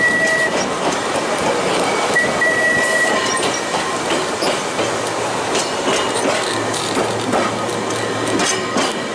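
Manx Electric Railway tram running along the track, heard from aboard the car: steady rolling noise with clicks from the wheels over the rails. A thin high wheel squeal sounds briefly at the start and again about two seconds in, as the car takes a curve.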